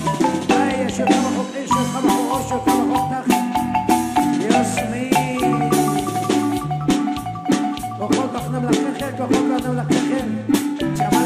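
Marimba orquesta playing a son in 6/8 time: marimba melody over a repeating bass line, with frequent percussion strikes.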